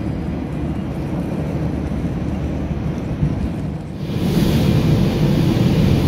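Steady low rumble, then about four seconds in a louder rushing noise: wind and ship engine drone on a moving car ferry's open deck.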